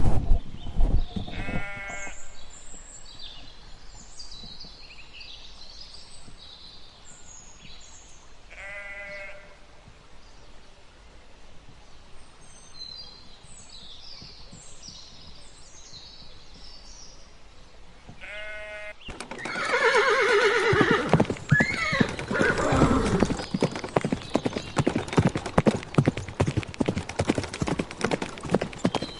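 Small birds chirping in the background, with three short bleating calls spread through the first part. About nineteen seconds in, horse hooves start clip-clopping loudly and a horse whinnies briefly.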